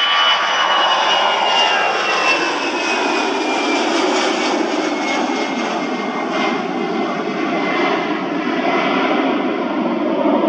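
Airbus A320-family airliner's twin jet engines at takeoff thrust as it lifts off and climbs away: a loud, steady jet roar with a high whine that slowly falls in pitch as the aircraft moves away.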